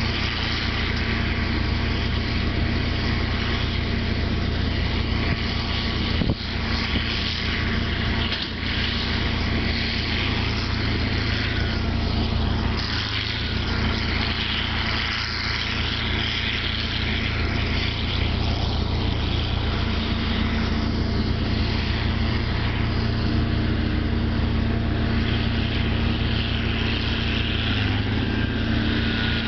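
A John Deere 4440 tractor's six-cylinder diesel engine running steadily while pulling a John Deere 567 round baler, with the baler's machinery running alongside. A sharp knock about six seconds in and another about two seconds later.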